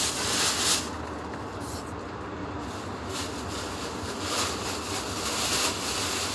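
Plastic grocery bags rustling and crinkling as they are handled, dying down about a second in and building back up after about three seconds, over a steady low hum.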